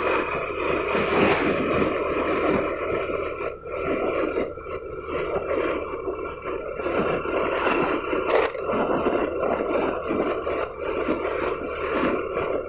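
A vehicle travelling along a road: engine running steadily, mixed with road and wind noise.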